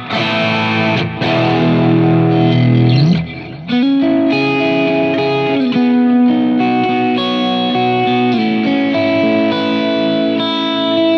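Electric guitar played through a Line 6 Helix with a clone of a 1966 Vox AC30 amp, saturated and broken up at the edge of breakup, with delay: chords and notes ring out, one note sliding up in pitch about three seconds in, then held chords ringing on.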